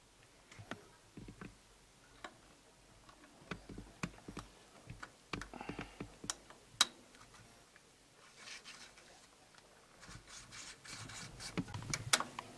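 Scattered light metallic clicks and taps as piston rings and a piston are handled and worked into the cylinder of a Saviem air compressor by hand, with one sharper click about seven seconds in and a busier run of taps near the end.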